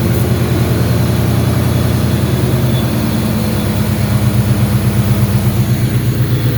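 Car engine idling roughly with an uneven, pulsing beat, the sign of a large vacuum leak.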